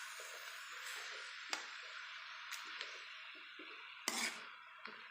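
Food sizzling in a pan on the stove, a steady hiss that slowly fades, with several sharp clicks and knocks of a utensil against the pan.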